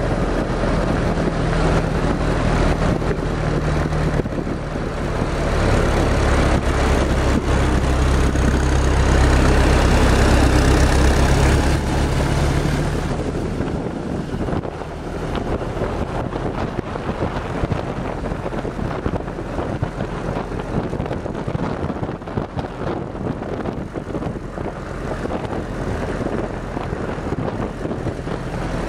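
WWII Willys jeep's four-cylinder engine running on the move, with wind and road noise. The engine is loudest midway and drops back about thirteen seconds in, leaving mostly wind and tyre noise.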